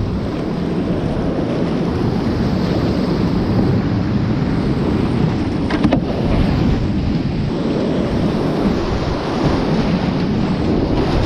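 Loud steady rush of whitewater rapids heard from a kayak running them, with water splashing and buffeting the microphone. A short sharp hit, such as a paddle striking, about six seconds in.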